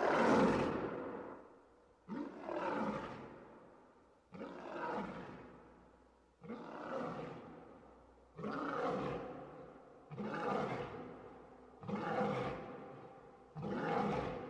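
Lion roaring: seven roars in a row about two seconds apart, each starting suddenly and fading away.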